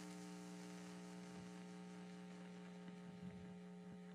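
Faint, steady electrical mains hum, a low buzz with evenly spaced overtones, under near silence.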